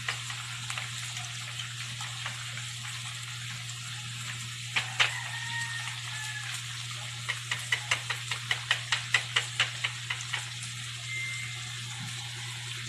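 Onions, garlic and tomato sizzling steadily in oil in a frying pan. A fork beats egg in a small bowl with a quick run of clicks, about five a second, from about seven to ten seconds in, after a single sharp knock about five seconds in.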